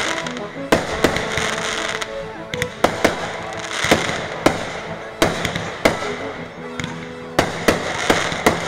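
Fireworks display: a dozen or so sharp, irregularly spaced bangs of aerial shells, with crackling in between.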